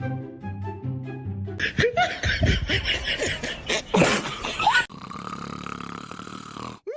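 Background music, broken in the middle by about three seconds of loud laughter-like vocal sounds with squealing rises and falls in pitch, then music again until a sudden cut near the end.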